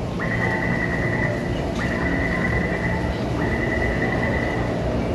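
Metro door-closing warning tone: a steady high beep in three long pulses of about a second and a half each, over the low hum of a train standing at the platform.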